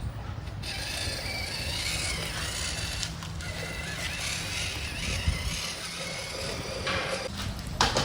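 Mini RC crawler running, with the small electric motor and geartrain whining over a steady low rumble; a short sharp knock about five seconds in.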